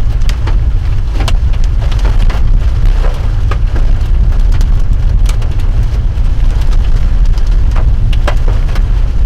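Steady low rumble of a vehicle driving, with irregular sharp taps of rain hitting the car.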